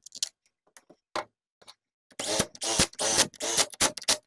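A few light clicks of parts being handled, then from about two seconds in a DeWalt cordless drill running in short stop-start bursts, driving screws into the chainsaw's crankcase.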